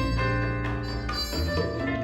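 Live Latin jazz combo playing the tune's melody: sustained pitched notes over a strong, steady bass line, with short hand-drum strokes throughout.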